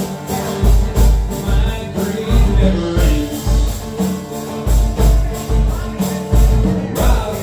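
Instrumental break in a live acoustic song: acoustic guitar strummed over hand drumming, with deep drum hits about twice a second.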